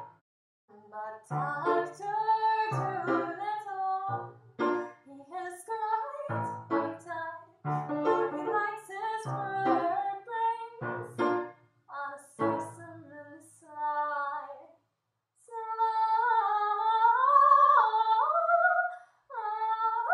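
A woman singing a comic song to her own upright piano accompaniment, in short phrases over struck chords. Near the end the piano stops and a wordless tone slides and wavers up and down for a few seconds.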